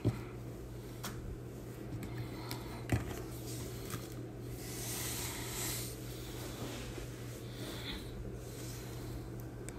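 Trading cards being handled and slid through a stack: a soft rustle of card stock and a few light clicks and taps, over a steady low hum.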